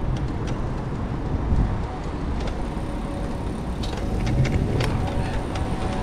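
Steady low rumble of wind and road noise while riding through city streets, with a few light clicks.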